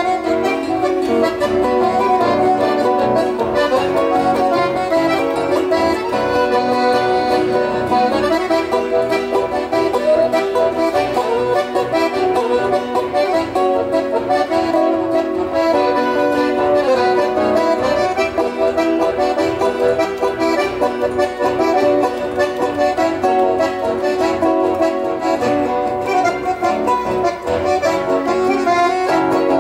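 Accordion playing a lively instrumental tune in the southern Brazilian gaúcho nativist style, with moving melody lines over sustained chords.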